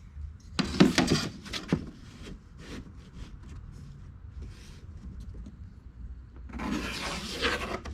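Piece of wood being handled while it is measured and marked: a few knocks about a second in, then a scraping rub on the wood lasting about a second near the end.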